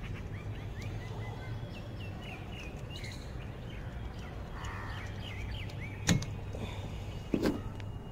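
Small birds chirping in quick short notes, over a steady low background hum. About six and seven and a half seconds in, two sharp knocks as the wiper blade's clip is pressed free and the blade is pulled down off the wiper arm.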